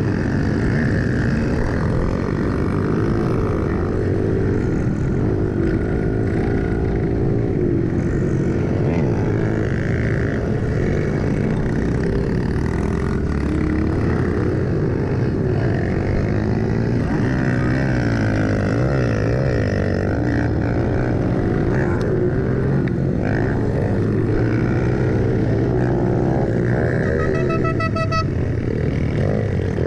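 Several pit bike engines revving and easing off as a pack races around a dirt track, the rider's own bike loudest, with its engine pitch rising and falling through the turns. Near the end another bike alongside revs up, briefly standing out as a higher whine.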